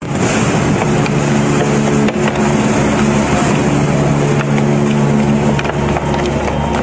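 Twin-shaft shredder with hooked cutter discs grinding up a rubber tire: a steady hum from the drive under continuous crunching and tearing, with occasional sharp cracks.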